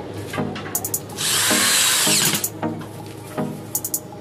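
Electric drill with a screwdriver bit running once for about a second and a half near the middle, its motor whine rising and falling as it drives a screw through an aluminium angle bracket into an aluminium door profile. Background music with a repeating beat plays under it.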